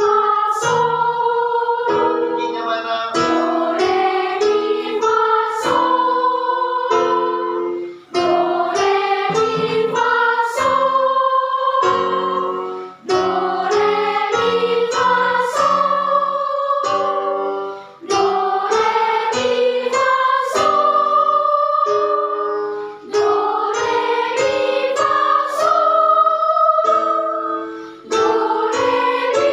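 Children's choir singing a song with instrumental accompaniment, in phrases of about five seconds each separated by short breaths.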